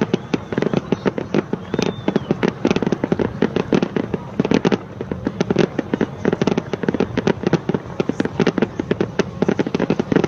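Fireworks display: a dense, unbroken barrage of bangs and crackles, many a second.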